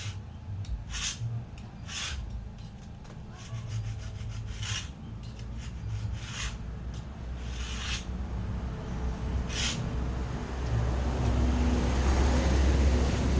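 A hand tool rubbing or scraping on wood in short, irregular strokes, about one a second, with a low rumble growing louder in the last few seconds.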